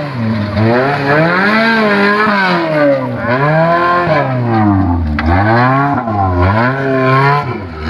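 Off-road 4x4's engine revving hard under throttle through loose dirt. Its pitch swings up and down over and over, about once a second, as the driver works the throttle.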